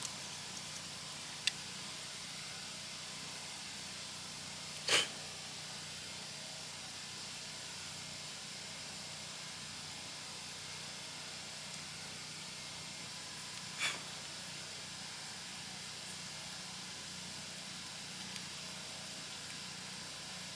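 Steady faint hiss, broken by two short rustles about five and fourteen seconds in and a few faint clicks.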